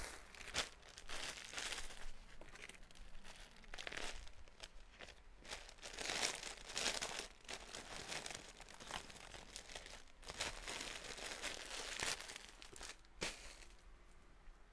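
Clear plastic garment bag crinkling and rustling in irregular spells as a packaged clothing set is handled, dying down near the end.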